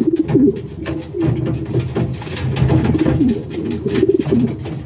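Racing pigeons cooing in a loft, a run of low, wavering coos one after another. This is the courtship cooing of birds just paired for the breeding season.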